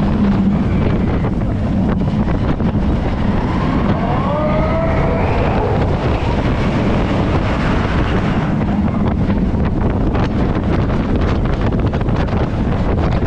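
Expedition Everest roller coaster train running along its track, a steady rumble with wind buffeting the microphone. A few short rising squeals come about four to five seconds in, and a rapid clatter builds from about eight seconds in.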